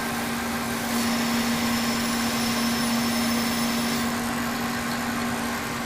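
Kearney & Trecker 2HL milling machine running as a lathe, its spindle drive giving a steady mechanical hum while the insert takes a light cut of about 20 thousandths. A faint high whine runs from about a second in to about four seconds in.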